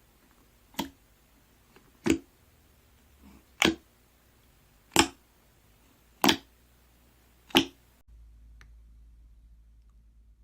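Six short, sharp clicks, evenly spaced about a second and a half apart, stopping about eight seconds in.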